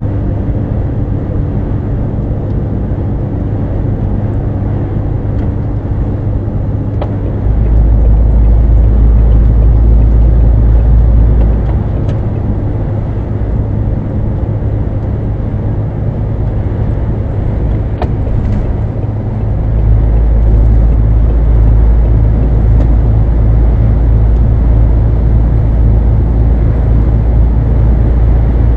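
Lorry engine and tyre noise heard inside the cab while cruising at about 85 km/h: a steady low drone. A deeper rumble swells about a quarter of the way in, eases off in the middle, and returns about two-thirds of the way through.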